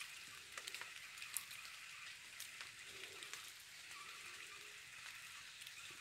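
Faint crackling of footsteps on dry leaf litter, with scattered light ticks and snaps, over a steady high hiss.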